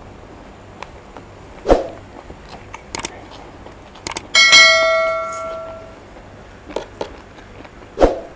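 A few mouse-click sounds, then a bell-like ding that rings and dies away over about a second and a half: the click and notification-bell chime of a subscribe-button animation. Around it, a few short soft smacks and knocks from eating rice by hand.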